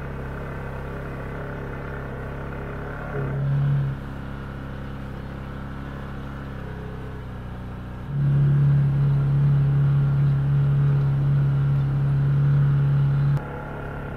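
Can-Am Maverick 1000 Sport's V-twin engine running steadily under way, swelling briefly a few seconds in, then much louder for about five seconds from roughly eight seconds in before dropping back suddenly.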